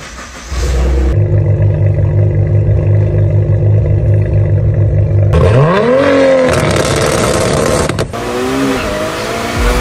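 Car engine idling with a steady low note, then revved hard about five seconds in, the pitch climbing and falling back, and revved again more briefly near the end.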